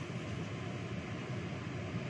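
Steady low rumble with a hiss and no distinct events.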